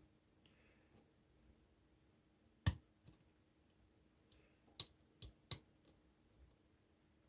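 Scattered small, sharp clicks of a lock pick working the pins of a Mul-T-Lock MTL800 cylinder held under tension, the loudest about two and a half seconds in and a quick cluster around five to six seconds in.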